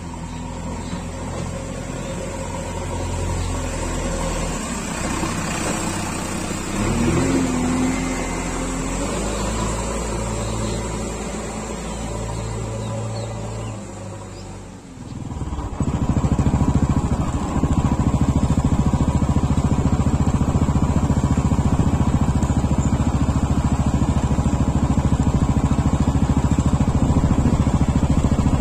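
JCB backhoe loader's diesel engine running as the machine drives along, with a brief rise in pitch about seven seconds in. About halfway through the sound dips, then the engine comes back louder and steady, heard close up.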